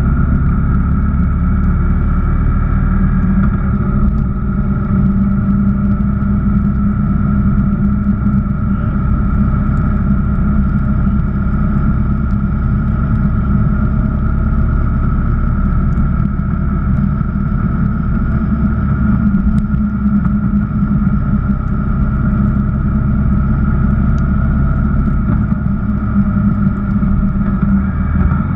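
Honda VFR1200X Crosstourer's V4 engine running steadily at cruising speed, its pitch holding nearly constant, under a heavy rumble of wind and tyre noise on a wet road.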